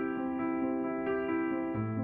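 Background music: gentle electric piano playing a steady run of notes, with a new low bass note about two seconds in.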